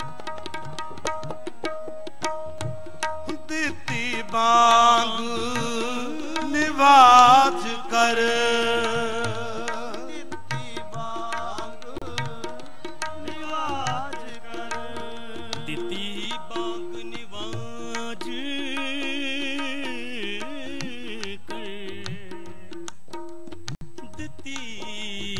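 Sikh kirtan ensemble playing: harmoniums sustain the melody over a steady tabla rhythm, joined by voices holding long, wavering notes. The music swells loudest about five seconds in and again about seven seconds in.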